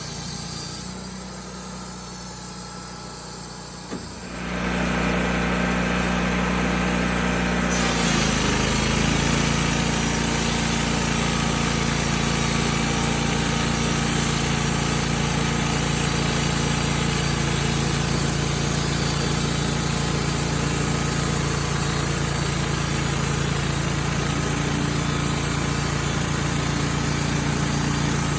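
Wood-Mizer LT35HD portable sawmill's engine running steadily. It gets louder about four seconds in, its pitch shifts about eight seconds in, and it then holds steady.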